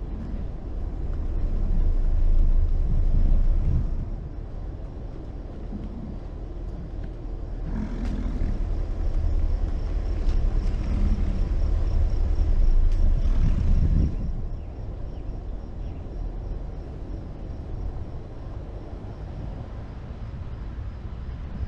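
Low rumble of a Jeep Wrangler's engine and wind on the microphone as it rolls slowly past a bison herd, swelling for the first few seconds and again about halfway through, then easing off. A few short, low grunts from the American bison sound over it in the first part.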